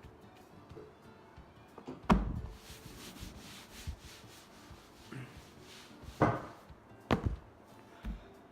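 A few dull knocks and rubbing sounds, the loudest about two seconds in, over faint background music.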